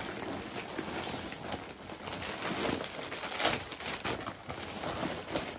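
Plastic mailer bag crinkling and rustling as hands rummage in it and pull at it, with irregular sharp crackles.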